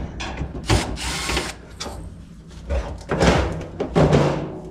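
A part being pulled out of an electric dryer by hand, scraping and knocking against the cabinet in several uneven bursts.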